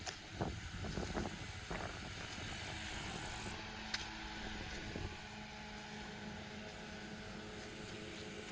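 Footsteps walking, a few steps in the first two seconds, over the steady low drone of a distant engine. A faint high whine fades out midway and returns near the end.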